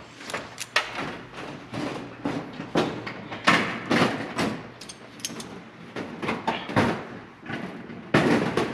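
Cleco fasteners being set with Cleco pliers into pre-drilled holes in aluminum sheet-metal kit-aircraft parts: an irregular string of sharp metallic clicks, clacks and knocks, with the thin panels rattling.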